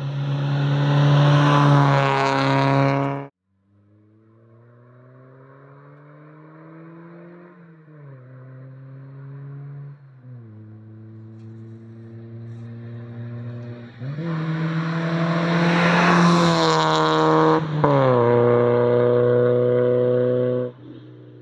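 Mazda MX-5 NA 1.6 four-cylinder engine through an AG Works aftermarket exhaust. The first loud pass cuts off suddenly about three seconds in. The engine then comes back faint and revs up through the gears with two shifts, gets loud as the car passes close, and drops in pitch as it pulls away.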